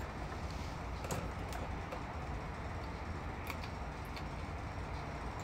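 A few light, sharp clicks as a wire's push-on spade connector is fitted onto the terminals of a gas dryer timer, over a low steady background hum.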